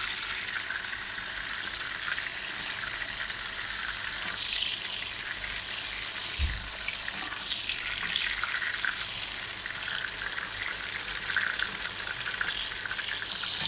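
Beef frankfurters frying in a pan, a steady sizzle with small crackles. A short low thump about halfway through.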